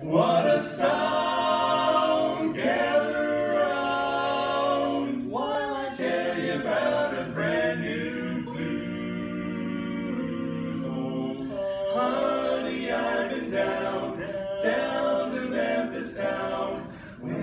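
Barbershop quartet of four male voices singing a cappella in close harmony, holding and moving through chords.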